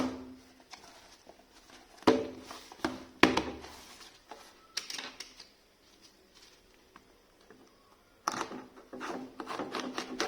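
Hands handling a watch box and its packaging: a few sharp knocks and clicks on a hard surface, then, from about 8 s in, a busy run of small clicks and rustling.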